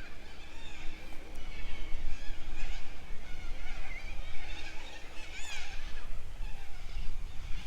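Several birds calling, a run of short chirps and squawks that slide up and down in pitch, with one louder call about five and a half seconds in, over a steady low rumble.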